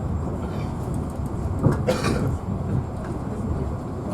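Passenger train in motion heard from inside the carriage: a steady low rumble, with one brief sharp noise about two seconds in.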